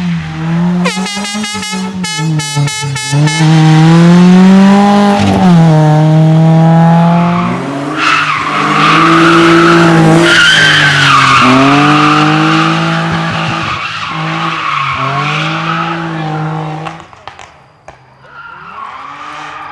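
Rally car engine revving hard with repeated rises and falls in pitch through gear changes, with a rapid burst of sharp crackling pops about a second in. Tyres squeal loudly for several seconds midway. The sound fades away near the end.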